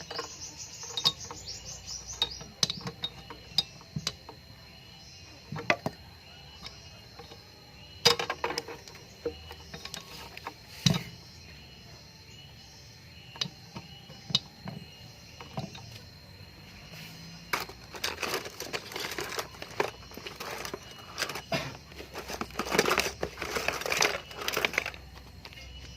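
Scattered metallic clinks and knocks from tools and metal pipe being handled during refrigerator condenser work, over a faint steady high whine. A short hiss fades out in the first couple of seconds, and a stretch of dense scraping and rustling comes near the end.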